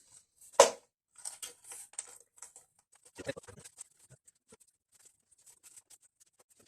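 Jigsaw puzzle pieces being handled and moved on a table: scattered light clicks, taps and rustles, with a sharper knock about half a second in and a cluster of taps around three seconds in, thinning to faint ticks.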